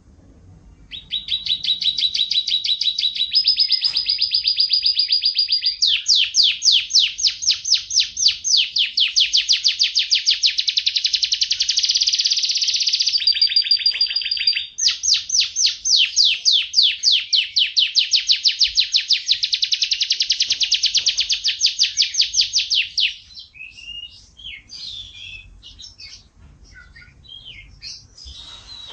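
Canary singing a long song of fast rolling trills, each held for a few seconds before switching to another pitch, for about twenty seconds. After that the song stops and only scattered short chirps and whistles remain, quieter.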